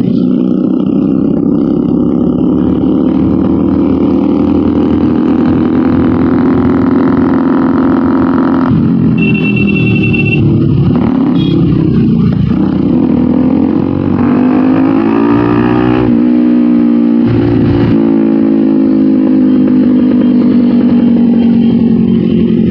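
Bajaj Pulsar NS200 single-cylinder engine running through an aftermarket SC Project slip-on exhaust while riding, its pitch rising and falling with throttle and gear changes, with wind noise on the helmet microphone.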